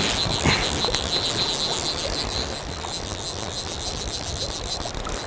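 Steady rushing of fast river current, an even hiss that fades slowly, with a thin steady high tone over it.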